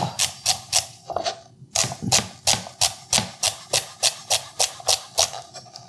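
Henckels Elan Santoku knife chopping celery on a white plastic cutting board: a fast, even run of crisp taps, about four a second, with a short break about a second and a half in.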